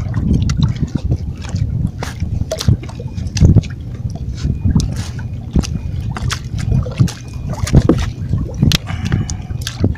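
Sea water sloshing and splashing against shoreline rocks over a low rumble, with scattered sharp clicks throughout.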